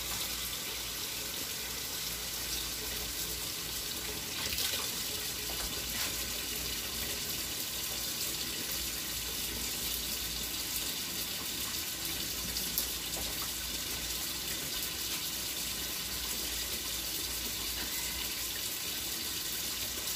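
A steady, even hiss, with a few faint short knocks, one about four seconds in and another near thirteen seconds.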